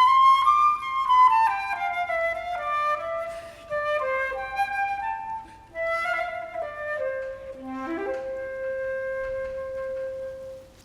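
Music: a slow solo melody, one line of notes sliding from one to the next, ending on a long held note that stops near the end.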